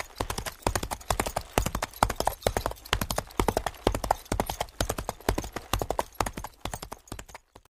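Hooves of a running animal, rapid clattering hoofbeats in a galloping rhythm on hard ground. They stop abruptly near the end.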